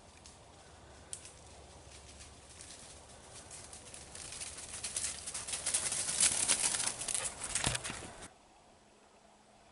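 Footsteps crunching and rustling through dry leaf litter and brush, building up over a few seconds into a dense crackle and cutting off suddenly near the end.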